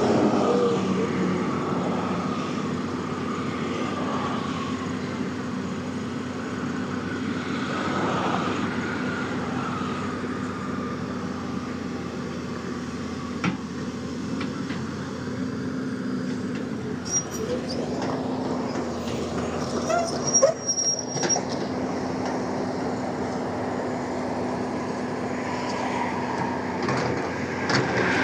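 Heavy diesel engine running steadily, with a few short knocks and clanks partway through.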